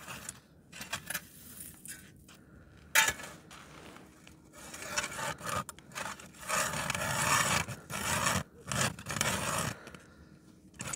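Hand ice auger (a crank-turned ice drill) grinding and scraping as its blades bore down through thick ice, in uneven turning strokes that grow stronger in the second half. A sharp knock comes about three seconds in.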